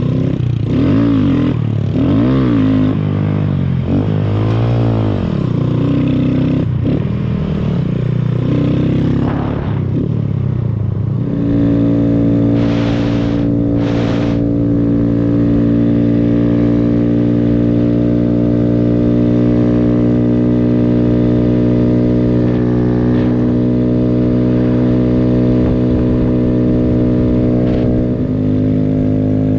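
Small motorcycle engine revving up and down for the first ten seconds or so with the throttle, then holding a steady pitch at cruising speed.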